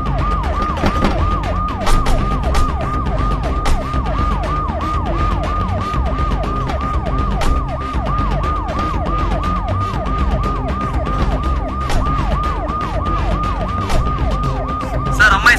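Police car siren sounding a rapid, repeating wail: a tone that drops in pitch about three times a second, steady all through, over a low rumble.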